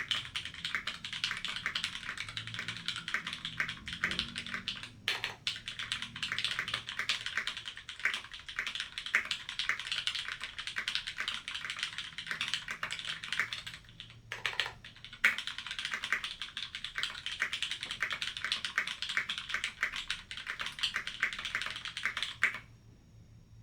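Typing on a Life Zone LZ-CE 60% mechanical keyboard with lubed, filmed Cherry MX Vintage Brown tactile switches in an aluminium plate and Filco OEM keycaps: rapid continuous keystrokes with two brief pauses, stopping about a second before the end.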